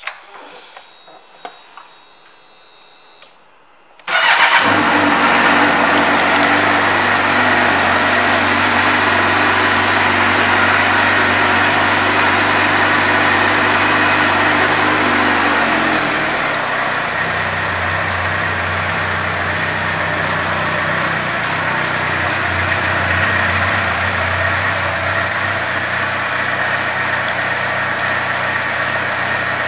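2007 Suzuki GSX-R600's inline-four engine starts suddenly about four seconds in and then idles steadily. About sixteen seconds in, the idle drops slightly and settles lower.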